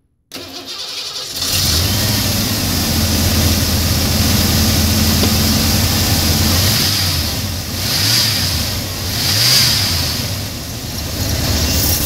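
1990 Ford F-150 engine cranked on the starter and catching within about a second, then running steadily. It is revved up and back down twice near the end as the gas pedal is pumped, showing the newly installed throttle cable works the throttle.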